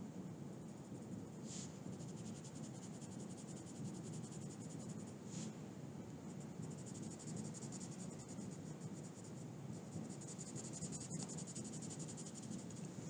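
Coloured pencil scratching faintly on paper in quick, short shading strokes, with a couple of firmer single strokes standing out.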